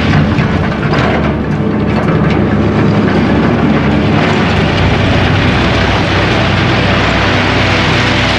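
Komatsu hydraulic excavator's diesel engine running steadily under load while its bucket digs into a pile of crushed stone, with stones scraping and clattering against the steel bucket, sharpest in the first couple of seconds.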